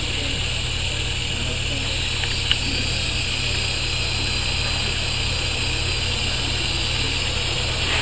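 Steady high-pitched buzzing of insects in the trees over a low steady rumble, with a single sharp click about two and a half seconds in.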